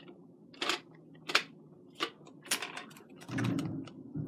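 Hard plastic parts of a spiralizer being handled: about five sharp clicks and clacks, then a short scraping rustle near the end.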